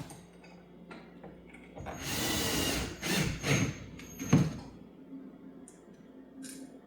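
Cordless drill/driver runs for about a second, driving a screw into a door hinge, followed by three sharp knocks.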